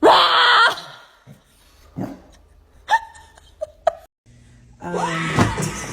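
A person's short, loud yell at the start, then a few faint scattered sounds, then laughing and talking near the end.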